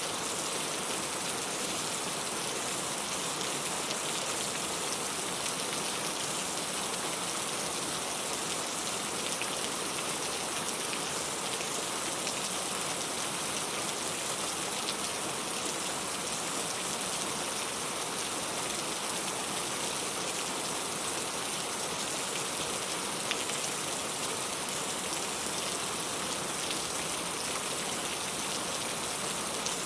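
Steady rain falling, with the patter of drops on a surface and a hiss weighted to the high end.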